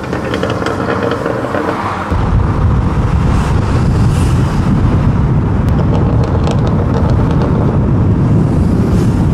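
Steady rumble of a car driving at speed, engine and road noise heard from inside the cabin; it grows louder about two seconds in.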